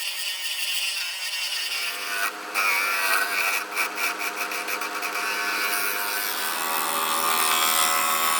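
Wood lathe running with a cutting tool hissing against a spinning bowl blank. A motor hum sets in about one and a half seconds in, and a quick run of sharp ticks comes between about two and five seconds in.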